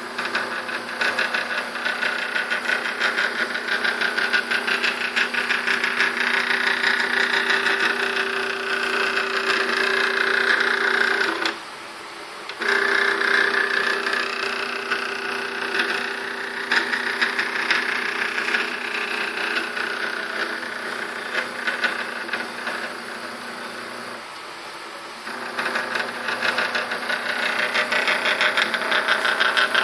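Stepper motor driving a belt-driven carriage along steel guide rods on a homemade CNC axis: a steady pitched hum with a fast, even ticking. It stops for about a second near the middle, then starts again, and runs more quietly for a couple of seconds near the end before picking back up.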